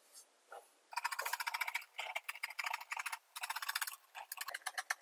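Scissors cutting through printed fabric in quick short snips: a rapid run of crisp clicks that starts about a second in, broken by a few brief pauses.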